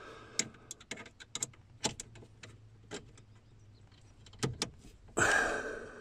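Scattered light metallic clicks and ticks of hand tools, a screwdriver and a wrench, as a small screw is turned and fitted. Near the end comes a heavy breath that fades away.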